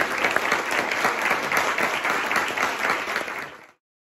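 Audience applauding, fading out quickly about three and a half seconds in.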